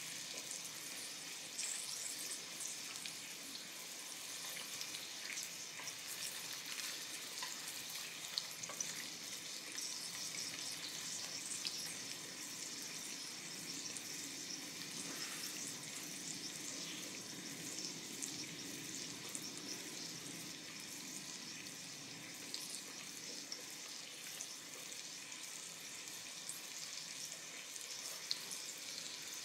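Thick Yamagata beef steak sizzling on a hot electric griddle plate: a steady, crackling frying hiss with a few sharp pops.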